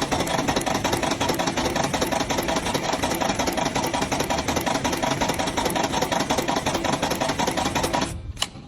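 A machine running with a rapid, even clatter of knocks that stops about eight seconds in.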